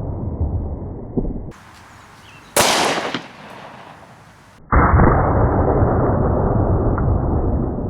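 A single shot from a Glock 20 10mm Auto pistol, a sharp crack with a short ringing tail, about two and a half seconds in. Around it is a loud, low, muffled rumble that stops about a second and a half in and starts again abruptly near the five-second mark.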